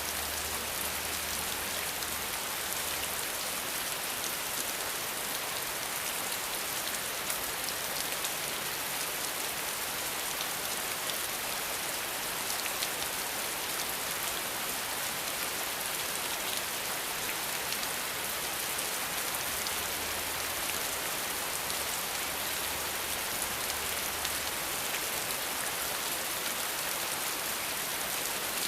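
Steady, heavy rain falling on surfaces, an even hiss of many drops with fine individual drop taps, unchanging in level.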